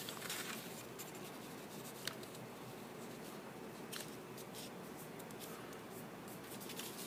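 Faint rustling and scraping of a paper template being folded and its crease pressed flat by hand against a tabletop, with a couple of light ticks, about two and four seconds in.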